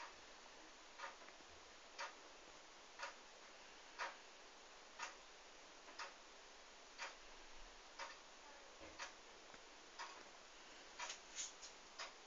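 A clock ticking steadily once a second over near silence, with a few quicker clicks bunched together near the end.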